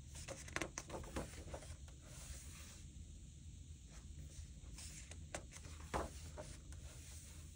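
Pages of a coloring book being turned by hand: quiet paper rustling and crinkling, twice, once about half a second in and again around five to six seconds in.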